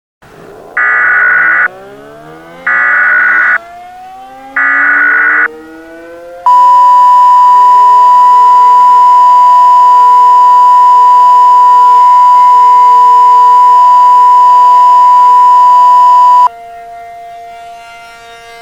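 Emergency Alert System tones: three short bursts of the digital SAME header data, then a loud, steady attention tone that lasts about ten seconds and cuts off suddenly. Under them, a wailing tone winds up in pitch at the start and then holds steady, staying on faintly after the attention tone stops.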